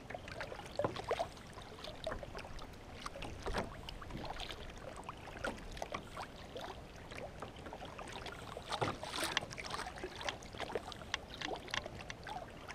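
Double-bladed kayak paddle stroking through lake water: a string of short, irregular splashes as the blades dip and pull.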